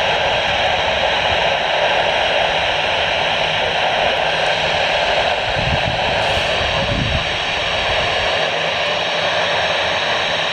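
Steady hiss of radio static from a weather radio receiver on a weak or dead channel, with a brief low rumble about six to seven seconds in.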